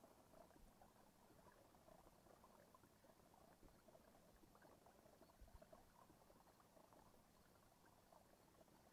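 Near silence: a faint, irregular patter of small water ticks, like water lapping and dripping against a kayak hull.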